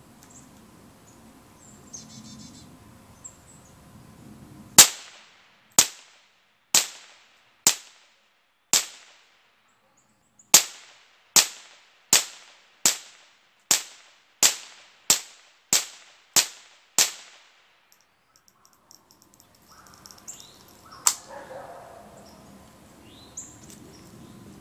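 Marlin 60 .22 semi-automatic rifle in a Badger bullpup stock firing fifteen shots: five at about one a second, a pause of about two seconds, then ten more slightly faster, each shot cycling with no stoppage. A few seconds after the last shot comes a single sharp clack, then rustling footsteps on leaves.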